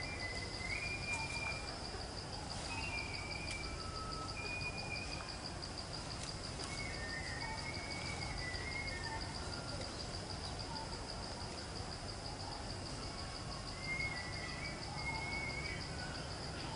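Steady, rapidly pulsing high-pitched insect trill, with short whistled bird calls coming in now and then over a background of outdoor noise.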